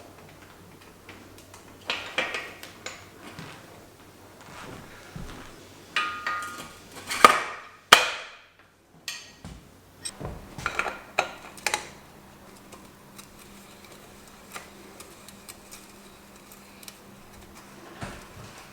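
Metal bicycle parts and hand tools being handled at a workbench: scattered clicks and taps, with bursts of ringing metallic clinks about two, six to seven and ten to twelve seconds in.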